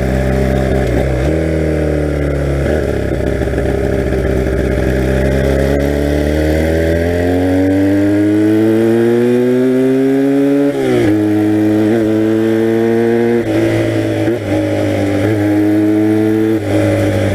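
1982 Honda motorcycle engine under way. Its pitch climbs steadily as the bike accelerates, drops sharply at a gear change about eleven seconds in, then holds fairly steady with a few brief dips.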